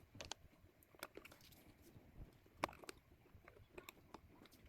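Faint, scattered small clicks and taps of hands working an M.2 SSD into its motherboard slot, over near silence.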